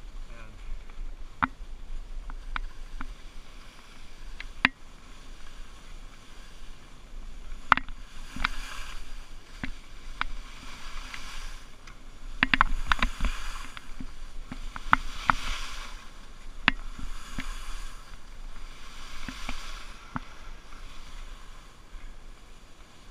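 Skis carving through soft, slushy spring snow: a swishing hiss that swells with each turn, with scattered sharp clicks and knocks and a low wind rumble on the microphone.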